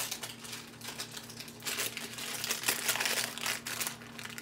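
A cookie package crinkling as it is handled and opened, a run of irregular crackles.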